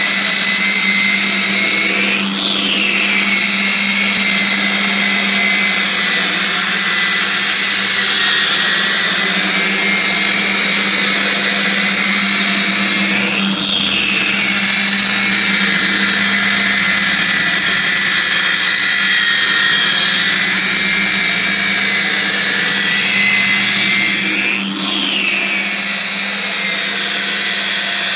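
Harbor Freight angle grinder with a sanding disc, on a CNC gantry, grinding a sheet-metal panel with a steady high whine. Three times, about every eleven seconds, the whine briefly rises in pitch and settles back.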